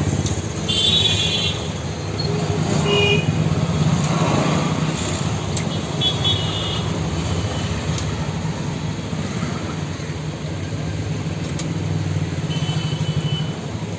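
Street traffic: a steady low rumble of passing vehicle engines, with short horn toots about a second in, around three seconds, around six seconds and near the end.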